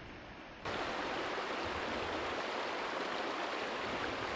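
A shallow stream rushing over stones, a steady rush of water that cuts in abruptly about half a second in, after a brief low rumble of wind on the microphone.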